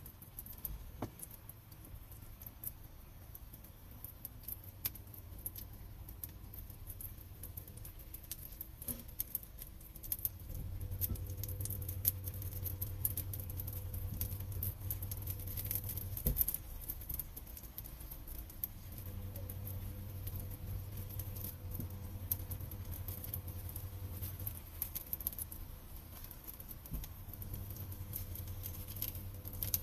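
Pancakes frying in oil in a nonstick pan: a steady sizzle with fine crackling, and a spatula now and then scraping under them. A low hum starts about ten seconds in, drops out for a moment, and returns near the end.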